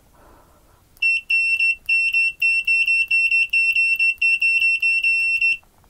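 Continuity beeper of a GVDA GD166B clamp meter sounding as the test lead probe tips are touched together: a high beep starts about a second in and runs for about four and a half seconds, broken into rapid short pulses, then stops.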